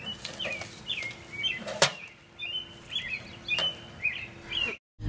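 Small birds chirping in short, repeated notes, with a sharp click from the mailbox as it is handled about two seconds in.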